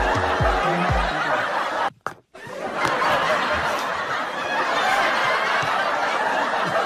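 Audience laughter from a laugh track, a steady wash of many people snickering and chuckling, with a few deep beats under it in the first second. It drops out briefly about two seconds in, then carries on unchanged.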